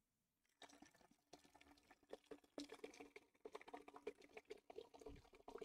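Soda poured from a can into a metal stockpot: a faint, irregular splashing patter that picks up about halfway through.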